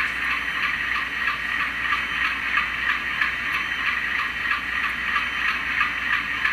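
LokSound sound decoder in an HO-scale Atlas C424 model locomotive, playing the sound of an Alco 251 12-cylinder diesel engine through the model's small speaker as it moves slowly along the track. The engine sound is steady, with an even pulse and little bass.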